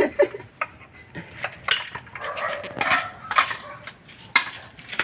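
Wrenches and a socket bar clinking on the bolts of a Hyundai Santa Fe transmission case as the case bolts are undone: a series of sharp metallic clinks at irregular intervals.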